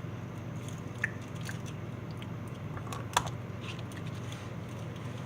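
Someone biting and chewing a piece of candy: small crunches and clicks over a steady low hum, with a sharp click about a second in and a louder one about three seconds in.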